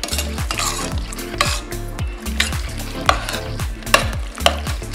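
Metal spoon stirring thick canned baked beans mixed with chopped onion, bacon and sauce in a pot, with wet scraping strokes against the side.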